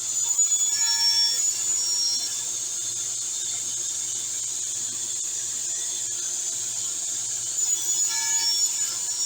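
Table saw with a three-phase motor running, with two louder spells of sawing with a high, whining tone: one starting just after the beginning and one near the end.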